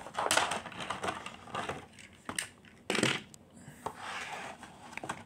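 Plastic packaging tray and cardboard box rustling and scraping as they are handled, with a sharper knock about three seconds in.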